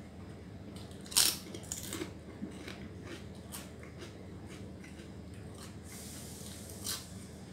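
A person eating close to the microphone: chewing and mouth noises with a few short, sharp crisp bites, the loudest about a second in and another near the end.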